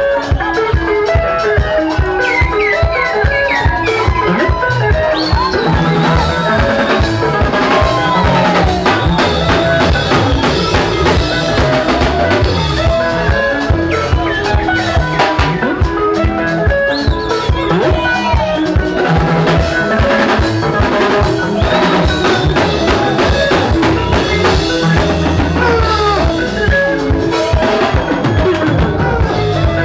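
Zimbabwean rumba band playing live: quick, bright lead guitar lines over rhythm guitar, electric bass and a steady drum-kit beat.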